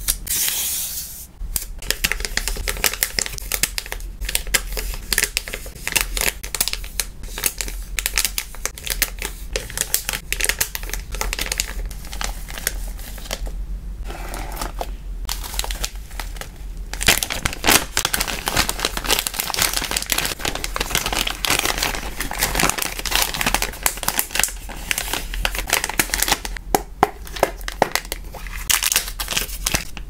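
Crinkling and rustling of plastic packaging with the tearing and peeling of sticker labels, a dense run of small crackles and clicks that grows thicker and steadier past the middle.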